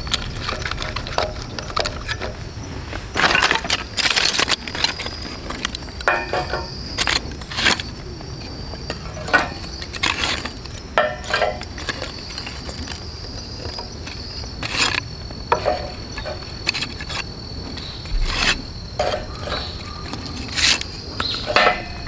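Thin split-wood kindling sticks clacking and knocking as they are stacked crosswise over a pine cone on a log in a metal fire pit: irregular sharp wooden clicks throughout. A steady high-pitched insect drone runs underneath.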